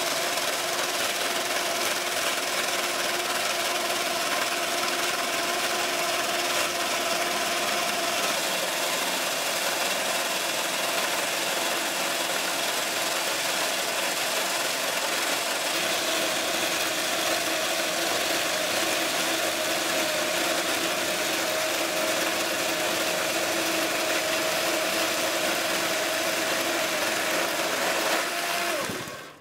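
Homemade electric chainsaw mill running steadily, its electric motor driving the chain as it rips lengthwise through a log. The sound falls away quickly about a second before the end as the cut finishes and the motor stops.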